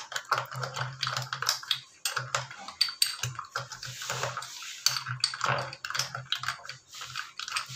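A spoon stirring ice cubes in a glass of iced fruit drink, clinking and rattling against the glass in quick, irregular taps.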